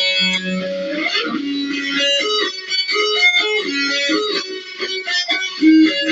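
Electric guitar shredding: fast runs of quick single notes, after about a second of a repeated pulsing figure.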